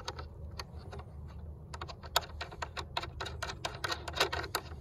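Quick small clicks and clinks of a washer and nut being handled and started by hand onto the mirror's top mounting stud. The clicks are sparse at first and come thick and fast from about two seconds in.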